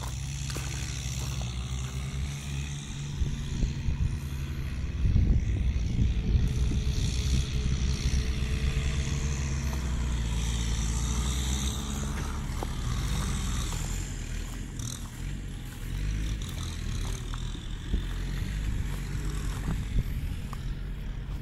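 A tractor engine running steadily at low revs, a low hum that grows a little louder about five seconds in.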